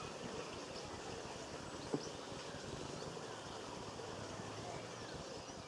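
Outdoor garden ambience: a steady background hiss with faint, scattered bird chirps, and one sharp tap about two seconds in.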